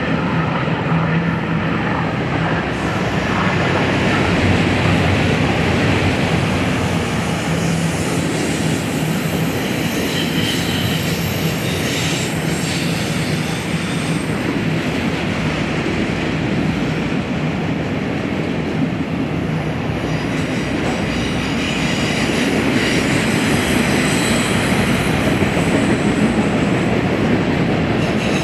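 Freight train rolling past: a steady rumble of steel wheels on the rails, with faint high wheel squeal at times.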